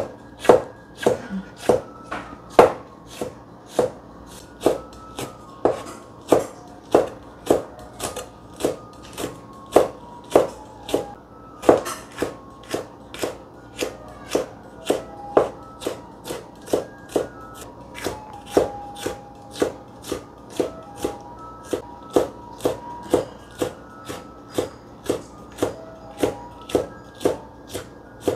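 Kitchen knife slicing long green chili peppers into thin rings on a cutting board: the blade knocks on the board at a steady pace, about two to three cuts a second.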